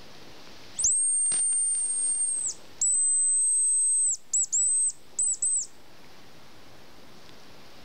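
Hazel grouse call (a hunter's decoy whistle) blown to imitate the hazel grouse's song: two long, thin, very high whistles, then a quick run of short notes about four seconds in.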